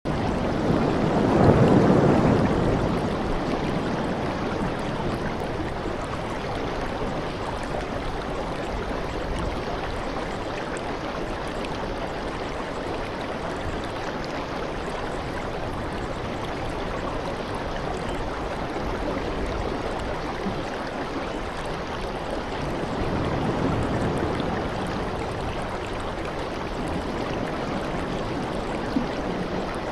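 Steady rushing water, swelling louder briefly near the start and again about three quarters of the way through. It serves as the masking background track of a subliminal, which hides quiet spoken affirmations.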